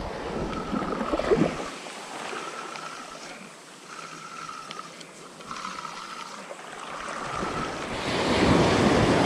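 Small ocean waves washing up a sandy beach, with a wave surging in and growing loudest near the end. A faint short whine repeats about every second and a half.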